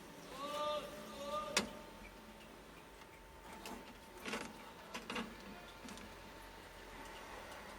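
A few light clicks and taps, like multimeter probes and small parts being handled on a circuit board, the sharpest about a second and a half in. Just before that, a short two-part hum.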